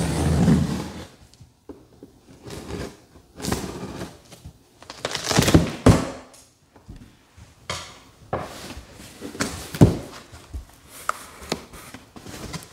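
Scissors cutting packing tape on a cardboard box, then the box's cardboard flaps being pulled open and folded back, with rustling, scraping and a few knocks.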